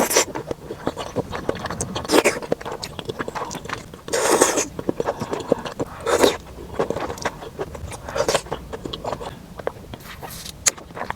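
Close-miked eating: bites and chewing, with many small clicks and a louder noisy burst about every two seconds, five in all.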